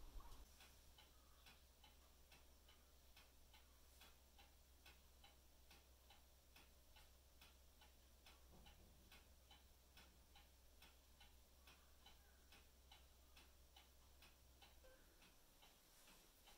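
Faint ticking of a clock, an even tick about twice a second, over a low steady hum that stops near the end.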